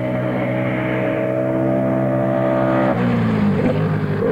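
Britten V1000 racing motorcycle's V-twin engine running hard at a steady, slightly rising high pitch. About three seconds in, the note changes and falls away.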